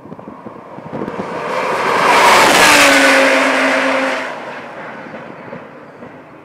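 Audi R8 LMS race car's V10 engine at full speed passing by, building to a loud peak about two and a half seconds in, then dropping in pitch and fading as it goes away.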